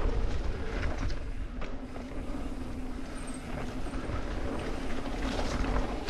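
Downhill mountain bike rolling fast over a dirt trail: wind rumble on the rider-mounted microphone, tyres on dirt and a constant scatter of clicks and rattles from the bike.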